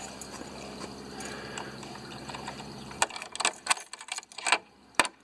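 A steady, even rushing noise for the first three seconds, then keys jangling and clicking against a steel padlock on a gate latch, with a sharp click near the end as the key goes in or the lock is worked.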